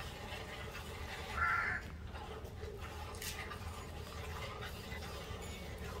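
Hand-milking a cow: streams of milk squirting into a bucket. A short, louder sound stands out about a second and a half in.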